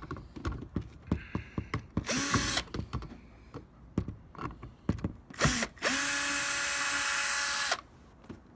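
Power drill/driver motor running: a short burst about two seconds in, a brief blip, then a steadier run of about two seconds from about six seconds in, each spinning up as it starts. Light clicks and taps from handling tools and parts come between the runs.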